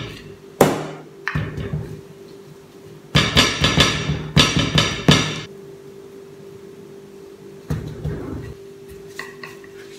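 Wooden rolling pin knocking and rolling on a slab of cold shortcrust pastry to flatten it. Two single knocks in the first second and a half, a dense run of knocks between about three and five and a half seconds in, and one more knock near eight seconds.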